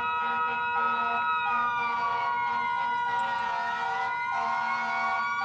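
Emergency vehicle siren wailing, its pitch sliding slowly down and then back up, over a second lower tone that keeps cutting in and out.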